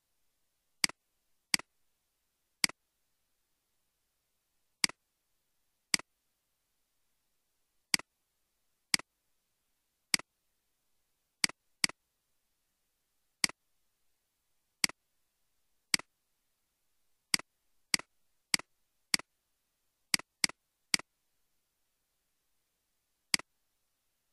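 Computer mouse button clicks, about twenty sharp clicks at irregular intervals, some in quick runs, each a press followed by a quieter release, with silence between.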